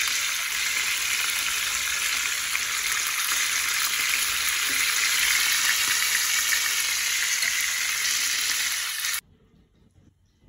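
Masala-marinated chicken drumsticks sizzling steadily as they shallow-fry in hot oil in a frying pan. Near the end the sizzling cuts off abruptly.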